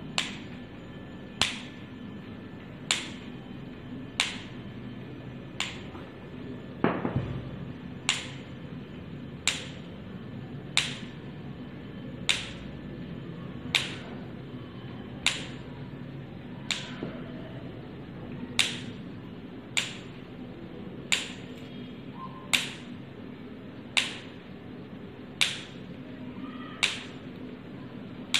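A miniature wooden cricket bat's face being struck with sharp, even taps, about one every second and a half, showing off its pressed and knocked face. A steady low hum runs underneath.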